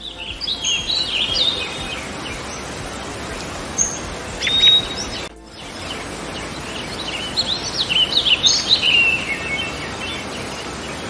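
Small birds chirping and twittering in quick high notes over a steady background hiss, in two stretches split by a brief break about five seconds in.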